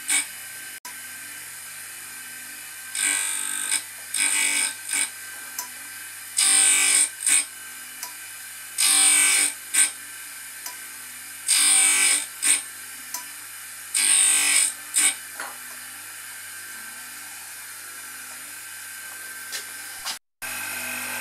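Home-made tool and cutter grinder running with a steady low motor hum while a rotabroach's end teeth are reground: six short hissing grinding passes of the wheel across the teeth, about every two and a half seconds, then the grinder running on its own for the last few seconds.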